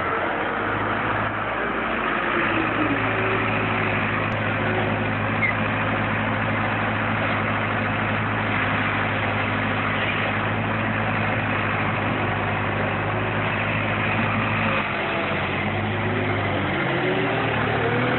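Compact garbage truck's engine running steadily with a low hum. Its note shifts near the end as the truck moves off.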